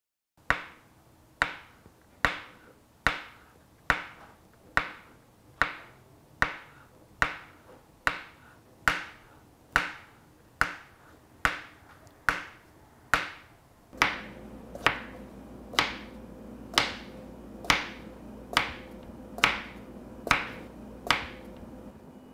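Sharp taps, evenly spaced a little over one a second, each with a short ringing tail. A low hum and background noise join about two thirds of the way through.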